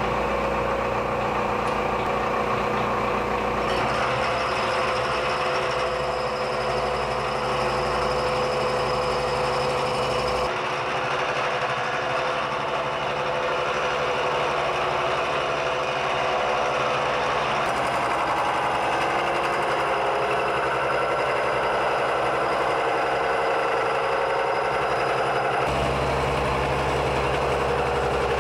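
Milling machine's face-mill cutter taking a steady cut across a welded steel bar, the power feed moving the table: a continuous machining whine and chatter whose tone shifts a few times as the cut goes on.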